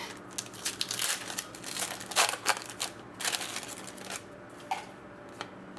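Trading-card pack wrapper crinkling as a pack of hockey cards is opened and handled. It comes as a run of irregular crackles, dense for about three seconds and then thinning out.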